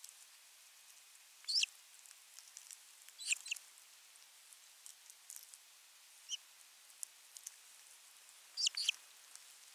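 Osprey giving short, high, quickly falling chirps in four brief bursts a couple of seconds apart, over a faint steady hiss with scattered soft ticks.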